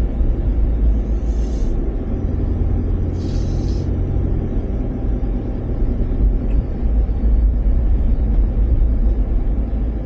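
A vehicle on the move: steady low engine and road rumble, with two short hisses in the first four seconds.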